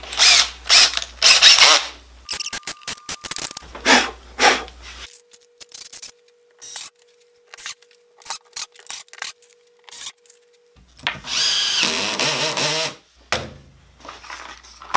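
Cordless drill driving wood screws into stacked plywood sheets: several short bursts, a quiet pause, then a longer run near the end.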